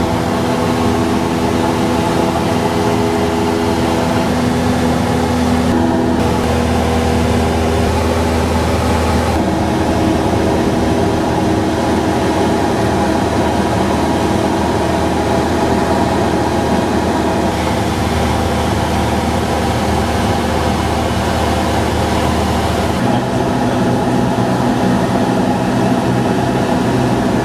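Cessna 172 Skyhawk's piston engine and propeller droning steadily in flight, heard inside the cabin along with airflow noise. The pitch of the drone shifts slightly a few times.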